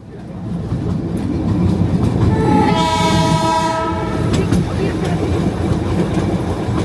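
Darjeeling Himalayan Railway toy train running with a steady rumble and wheel clatter; its horn sounds once, about two seconds in, for under two seconds.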